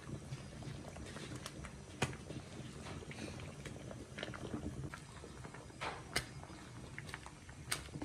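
Broth boiling hard in a large cauldron with squares of noodle dough cooking in it: a steady low bubbling with scattered sharp pops.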